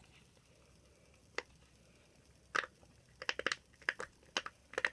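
Silicone pop-it fidget toy's bubbles being pressed: a few scattered pops at first, then a quick irregular run of pops in the second half.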